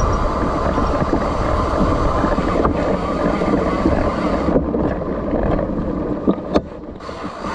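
Mountain bike rolling fast down a dirt trail: wind buffets the microphone over the rumble and rattle of tyres on dirt and rock. A couple of sharp clicks come about six and a half seconds in.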